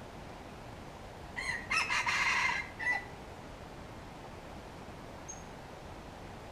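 Red junglefowl (wild rooster) crowing once: a short crow of about a second and a half, ending in a brief separate final note.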